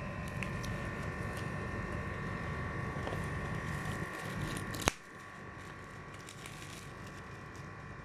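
Faint crinkling and rubbing as a shrink-wrapped smartphone box is handled, over a steady background hum. A sharp click comes about five seconds in, after which the hum drops and it gets quieter.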